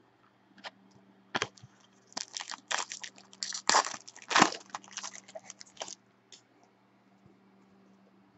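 Foil trading-card pack wrapper crinkling and crackling as it is torn open, a dense run of crackles for about four seconds that stops about six seconds in.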